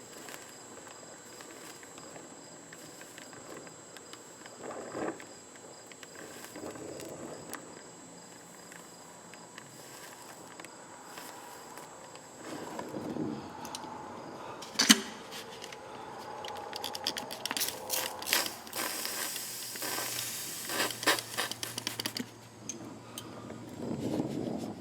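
Oxy-acetylene torch flame hissing steadily as it heats a rusted, seized exhaust manifold stud, with a sharp click about halfway through and a run of clicks and crackles in the second half as the hiss grows louder.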